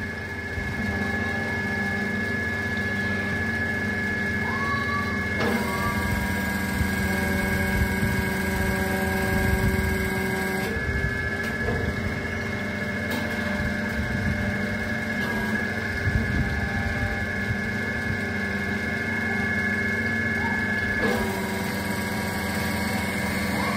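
The electric motor and hydraulic pump of a 10-ton hydraulic press run with a steady hum and a high whine. The pitch shifts abruptly several times, about 5, 11, 15 and 21 seconds in, as the control valve is worked to move the ram.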